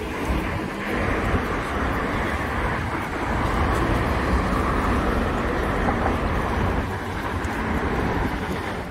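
Steady road traffic: cars and buses passing along a busy multi-lane city avenue, a continuous rushing drone.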